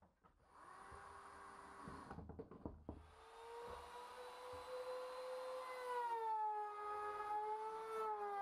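A handheld electric trim router running at high speed and cutting into the end of a wooden beam. Its whine sags lower in pitch as the bit bites into the wood. It is preceded by a shorter run of another power tool and a few knocks.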